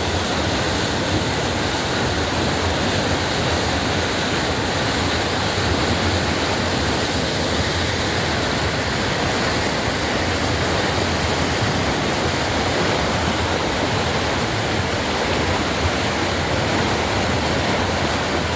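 Waterfall on a small river: a steady, unbroken rush of falling water.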